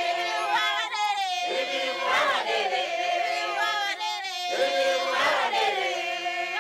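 A group of voices singing together, the phrase swelling and swooping about every three seconds.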